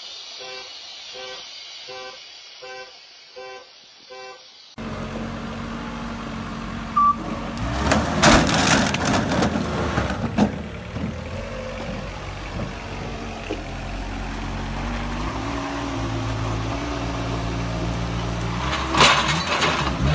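Engine of a Moffett truck-mounted forklift running, with loud clattering crashes as it tips forward onto a stack of plastic pipes, and another loud clatter near the end.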